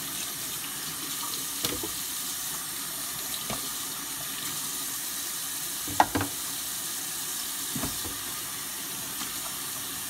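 Tap water running steadily into a sink while grit swarf from a 180-grit sharpening stone is rinsed off, with a few light knocks, the sharpest about six seconds in.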